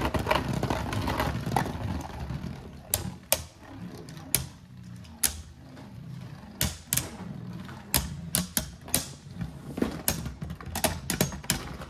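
Two Beyblade Burst spinning tops, Dusk Balkesh and an Artemis, battling in a plastic Beyblade stadium. For the first couple of seconds there is a dense scraping rattle, then a scatter of separate sharp clacks as they strike each other and the stadium walls.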